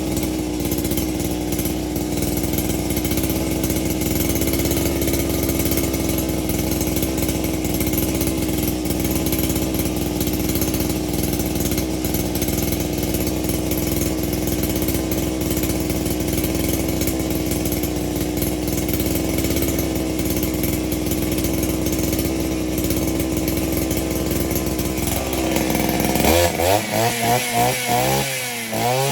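Small two-stroke engine of a handheld power tool running steadily, then its pitch wavering rapidly up and down near the end.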